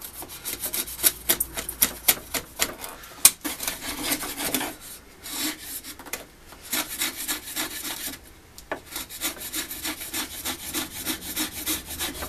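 Bench chisel paring softwood, shaving the floor of a halving-joint notch flat with many quick scraping strokes and small clicks, with a couple of short pauses. The chisel is not as sharp as it could be.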